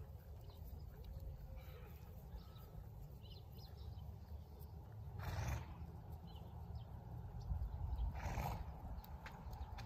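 Outdoor low rumble of wind on the microphone, with two short breathy bursts of noise about five and eight seconds in.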